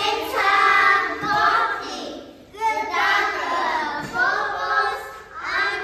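A small group of young children singing a song together in short phrases.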